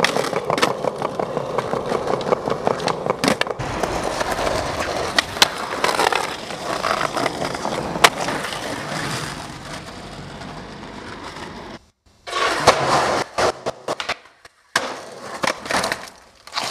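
Skateboard wheels rolling over pavement, with several sharp clacks of the board hitting the ground and ledge as tricks are popped and landed. The sound drops out for a moment about two thirds through, then more rolling and impacts follow.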